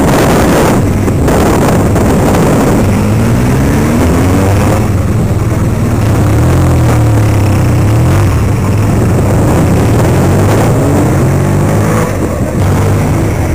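Motorcycle engine pulling away and accelerating, rising in pitch twice, under heavy wind noise on the microphone.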